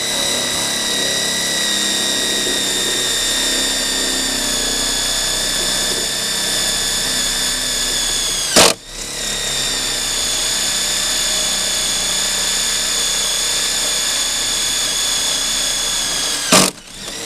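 Electric drill running steadily with a high whine as it bores a 3/16 inch hole through a metal fender bracket, its pitch sagging slightly under load. About halfway through it stops with a sharp click, starts again at once, and stops with another click near the end.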